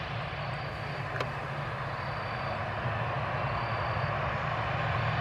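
Boeing 737-700's CFM56-7B turbofan engines at taxi power: a steady jet rumble with a broad hiss. A single sharp click comes about a second in.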